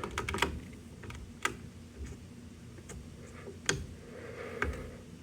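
Sparse, irregular clicks and taps, about one a second, from buttons being pressed on a fire alarm control panel after a reset, with no alarm sounding.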